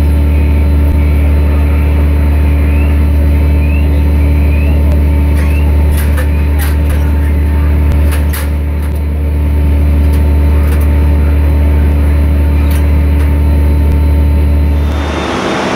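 Fire engine's motor and pump running steadily beside the listener, a loud, even low drone. A few sharp clicks and knocks sound around the middle, and near the end the drone cuts off to a steady hiss.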